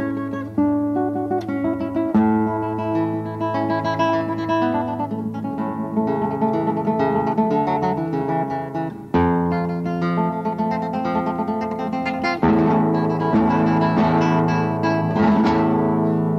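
Solo classical guitar playing a plucked melody over ringing bass notes. In the last few seconds it grows fuller and louder with strummed chords.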